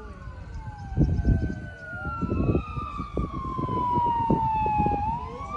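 Siren wailing, its tone falling slowly in pitch and then rising again near the end, with fainter overlapping tones gliding up and down. Bursts of low rumble come about a second in and again a second or so later.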